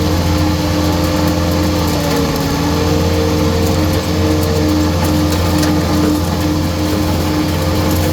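Skid steer with a hydraulic saw attachment running: a steady engine drone with a steady whine over it, the pitch dipping slightly about two seconds in.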